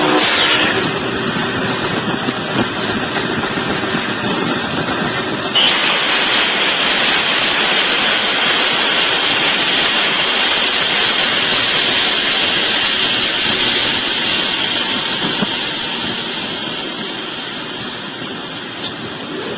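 Steady rumble and rushing noise of a locomotive running at speed, heard from the cab, with a horn chord dying away in the first second. The noise jumps louder suddenly about five and a half seconds in, then slowly fades toward the end.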